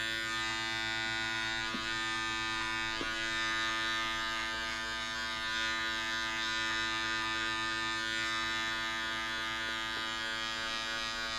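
Electric hair clipper running with a steady buzzing hum as it cuts up the side of a man's head with a #3 guard, its lever opened all the way.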